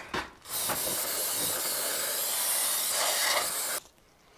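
Aerosol spray can hissing steadily as a cleaner is sprayed onto a cast metal excavator swing-device housing, for about three seconds, then cutting off suddenly.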